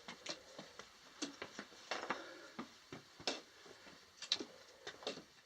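Footsteps of hikers on rock and grit: an irregular series of light scuffs and clicks.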